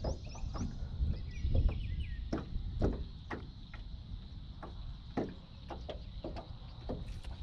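Irregular knocks and taps against an aluminum jon boat's hull, over a low wind rumble, with a few short bird chirps in the first two seconds.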